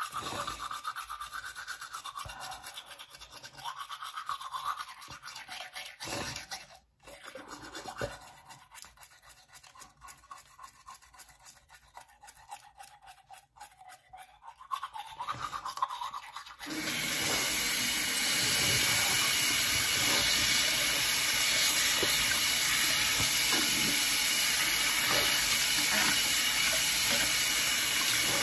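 Toothbrush scrubbing teeth through foamy toothpaste in irregular strokes. About two-thirds of the way through, a tap is turned on and water runs steadily into the sink, louder than the brushing.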